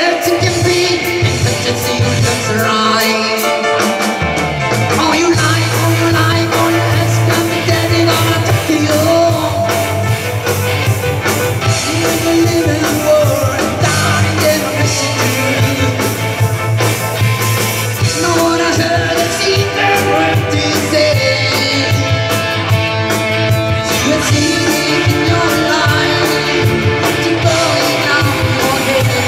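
A live rock band playing a song with singing, electric guitars, keyboard and drums; a low bass line comes in about four seconds in.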